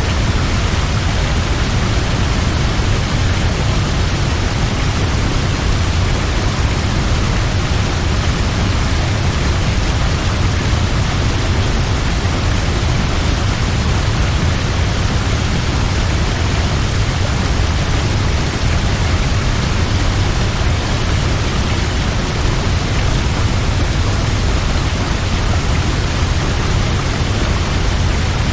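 Large waterfall falling over a cliff: a steady, unbroken rush of water, heaviest in the deep low end.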